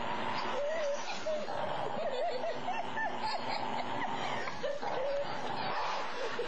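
Stifled snickering and giggling: a string of short, rising-and-falling pitched sounds.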